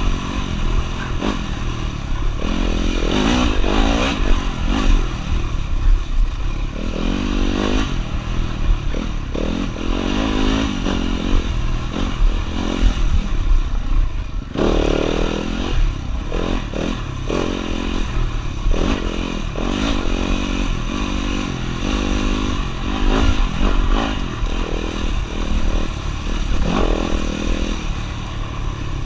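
Off-road motorcycle engine revving up and down over and over as the bike is ridden hard along a dirt trail. The throttle is briefly shut about halfway through, then the engine picks up again.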